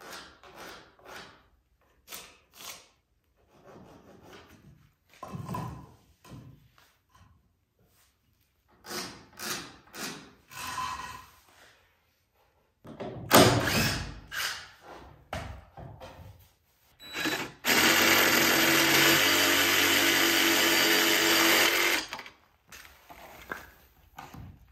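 Work sounds while fitting PVC trim boards: scattered knocks and handling, then a loud clatter. In the second half a power tool motor runs steadily for about four seconds and stops.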